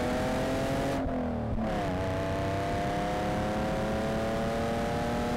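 Car engine accelerating hard, its pitch climbing steadily, dropping once at a gear change a little under two seconds in, then climbing again.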